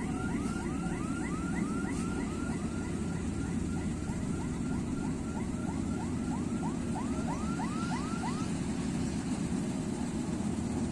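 Vishal 435 combine harvester's diesel engine running steadily. Over it, a siren-like warbling tone repeats about three times a second and stops about eight seconds in.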